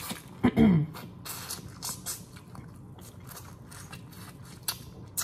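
Crawfish being eaten close to the microphone: shells cracking and chewing, a run of small clicks and crunches. About half a second in, a short hum of the voice that falls in pitch.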